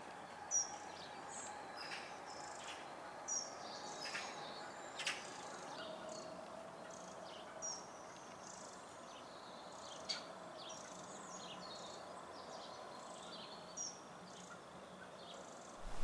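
Faint garden birdsong: small songbirds give short, high chirps and twitters scattered throughout, with a handful of brief soft clicks among them.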